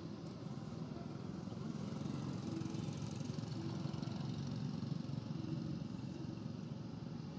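Steady low rumble of an engine running.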